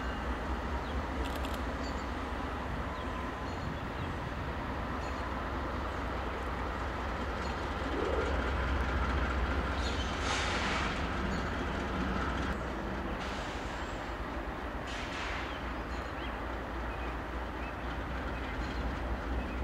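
A lash-up of diesel-electric locomotives rolling slowly, with a steady low engine rumble and wheel-on-rail noise. Two short hisses come through about ten and fifteen seconds in.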